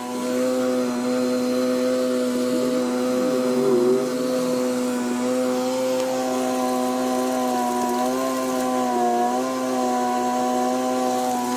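A motor running at a steady speed: a constant droning hum whose pitch sags briefly about eight seconds in, then recovers.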